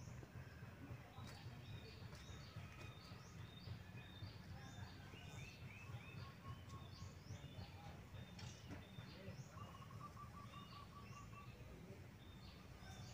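Faint outdoor ambience with small birds chirping repeatedly in short, high calls, over a steady low background noise. About three-quarters of the way through, a quick run of about ten even notes sounds.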